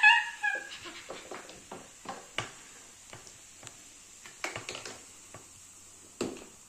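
Irregular light clicks and knocks of plastic toy dinosaurs being handled and set against the model volcano, with a few sharper knocks, one about two and a half seconds in and one near the end. A child's high-pitched excited cry trails off at the very start.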